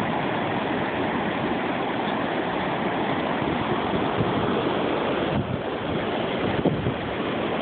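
Ocean surf washing on a sandy beach, with wind buffeting the phone's microphone: a steady rushing noise that dips briefly twice in the second half.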